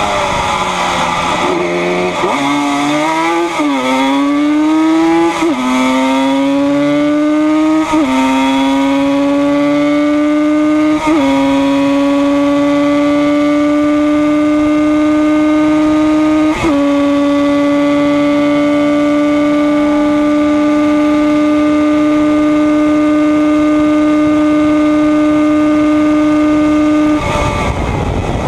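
Yamaha RD 250 two-stroke twin race bike heard from onboard, accelerating hard out of a corner and shifting up about five times. Each shift is a brief dip followed by a climbing note. It then holds flat out at a steady high pitch down the straight until the throttle shuts about a second before the end, leaving wind rush.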